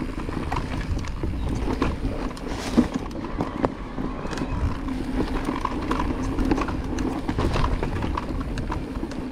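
Cube Stereo Hybrid 140 e-mountain bike rolling fast down a dirt trail: tyre noise on the loose surface and wind rumble on the helmet-camera microphone, with frequent rattles and clicks from the chain and frame over bumps.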